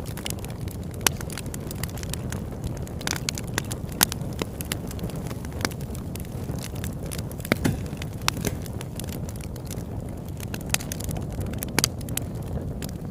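Campfire burning: a steady low rush from the flames with scattered sharp crackles and pops from the burning wood.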